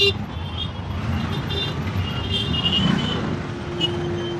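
Busy street traffic: engines of auto-rickshaws, motorbikes and cars running past at close range, with a steady held tone near the end.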